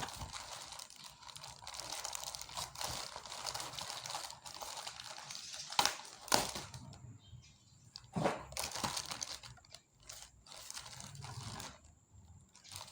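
Packaging being handled and crinkled while parts are unpacked, with a few sharp clicks or taps partway through.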